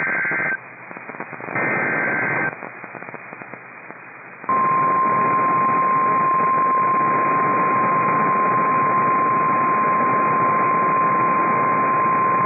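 NOAA Weather Radio Specific Area Message Encoding (SAME) alert header: short bursts of buzzing two-tone digital data over radio hiss, the last one ending about two and a half seconds in. About four and a half seconds in, the steady 1050 Hz Warning Alarm Tone begins and holds, signalling that a warning message follows.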